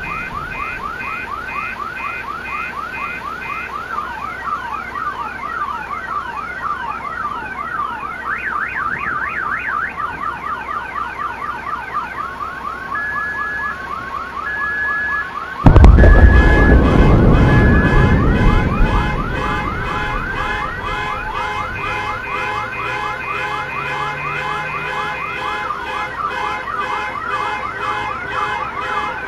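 Many overlapping siren-like wails and electronic alarm beeps sounding together, with fast rising sweeps and repeated short tones. About halfway through a sudden loud boom breaks in and rumbles away over a few seconds while the alarms keep sounding.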